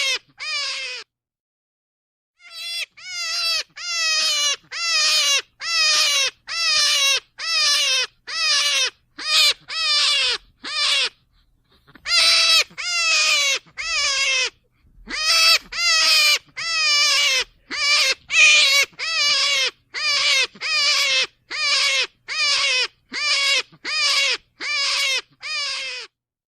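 An animal calling over and over, each call a short quavering cry that drops in pitch at its end, about one and a half calls a second, in long runs broken by two brief pauses.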